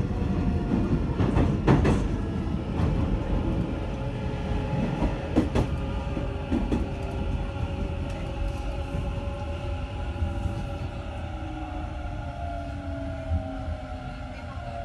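Hanshin 1000 series electric train heard from inside the car as it brakes: the Mitsubishi IGBT VVVF inverter and traction motors give a steady whine that slowly falls in pitch as the train slows, over a rumble of wheels on rail. A few sharp rail-joint clacks come in the first half.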